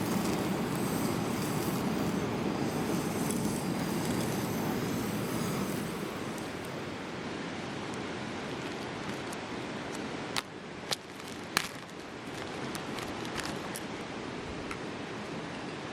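Steady rush of flowing river water, a little quieter from about six seconds in, with a few sharp clicks a little after ten seconds.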